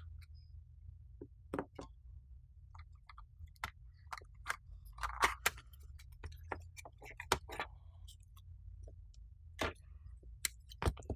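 Irregular small clicks and taps of hand tools working on a power-supply circuit board, over a low steady hum.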